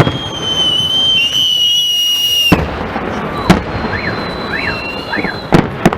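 Fireworks salute: sharp bangs of shells bursting, one at the start, one about halfway and two close together near the end, with high whistling tones between them.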